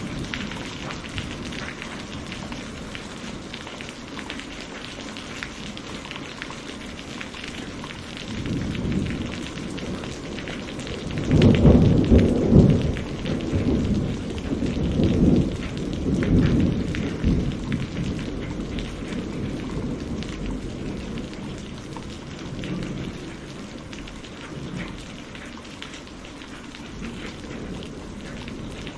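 Steady heavy rain with a long roll of thunder that builds about a third of the way in, peaks loudest in the middle, and rumbles away over several seconds.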